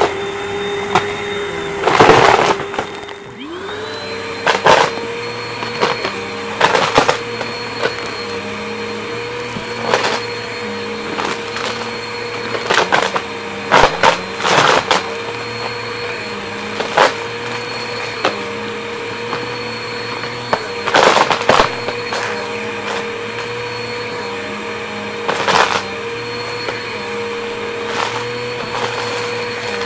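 Compact upright vacuum cleaner running on carpet, its motor a steady whine that dips and spins back up about three seconds in. Short loud rattles and clatters come every second or two as bits of debris are sucked up the nozzle.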